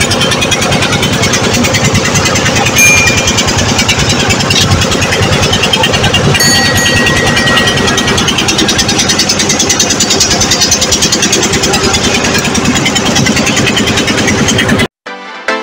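Boat engine running steadily under way with a fast, even pulse, cut off by music just before the end.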